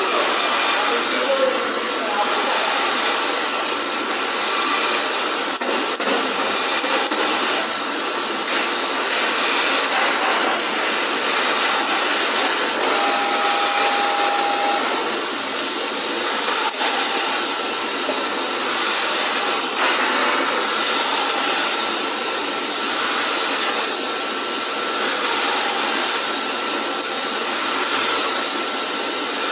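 Steady factory-floor machinery noise, a loud even hiss-like din with a faint high whine running under it. A short steady tone sounds for under two seconds about halfway through.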